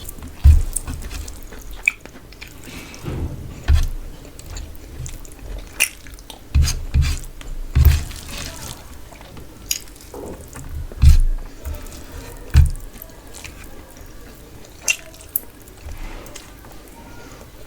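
Close-miked eating sounds: wet chewing and mouth clicks over a mouthful of rice and fish curry, with irregular sharp clicks and several loud low thumps.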